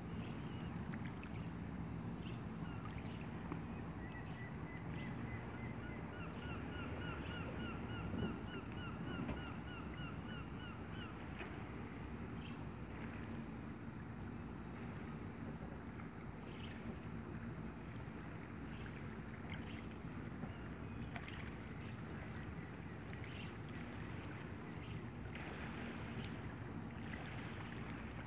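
Steady low outdoor rumble by the water, with a bird calling: one held note about four seconds in, then a rapid run of chirps that stops about eleven seconds in. Faint high ticking repeats throughout.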